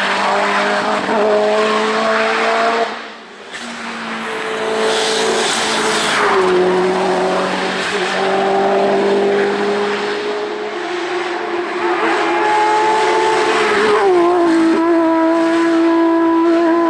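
Racing car engines running hard at high revs as the cars drive past on a hill climb course. The sound drops away sharply about three seconds in, then builds again as another car comes through, its engine pitch dipping quickly near the end as it shifts gear.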